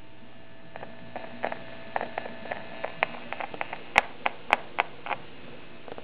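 Steady electrical hum from the 1935 Magnavox Illustravox Senior's amplifier and speaker, with a string of irregular sharp clicks and taps of handling on the machine. The clicks are loudest about four seconds in.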